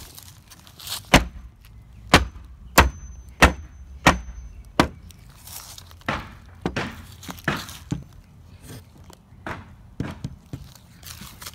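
Claw hammer striking nails into wooden boards: six sharp strikes about two-thirds of a second apart, then softer, duller knocks at an uneven pace.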